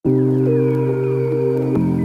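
Background music that starts suddenly with sustained, steady chords, changing to a new chord near the end.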